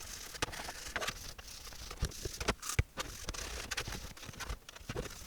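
Cleaning the inside of a plastic computer case base by hand: irregular scrubbing and scraping strokes against the plastic, with a few light knocks.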